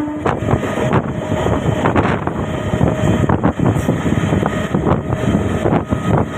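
Moving train heard from on board: a steady rumble and rattle of the running carriage with irregular clatter, mixed with wind on the microphone. A horn note sounding beforehand cuts off about a quarter second in.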